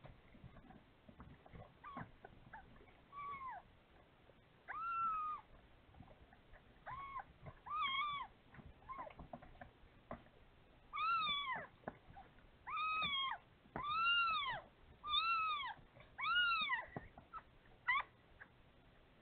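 Cat meowing repeatedly, about ten short calls that each rise and fall in pitch, coming closer together and louder in the second half.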